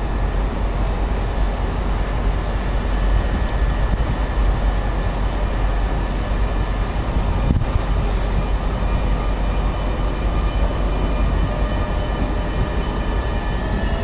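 X61 (Alstom Coradia Nordic) electric commuter train pulling away slowly: a steady low rumble with a faint electric whine. Near the end the whine starts to rise in pitch as the train accelerates.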